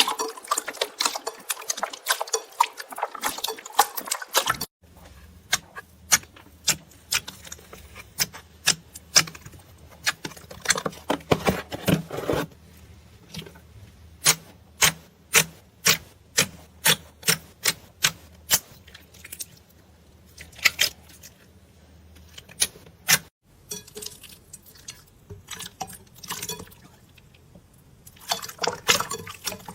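Slime being squeezed and poked, making a series of sharp, irregular pops and crackles. The sound breaks off and changes abruptly twice, about five seconds in and again near 23 seconds.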